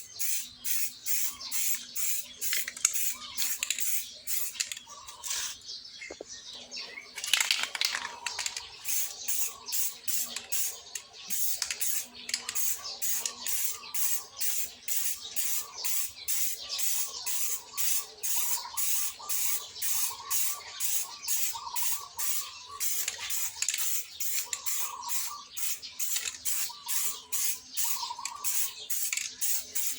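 Aerosol spray-paint can spraying black paint in short, rapid bursts, about two to three a second, with a longer spray about seven seconds in.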